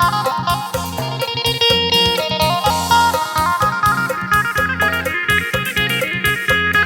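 Lam sing music: an electric phin (Isan plucked lute) plays a fast, busy melody over a steady, driving bass and drum beat.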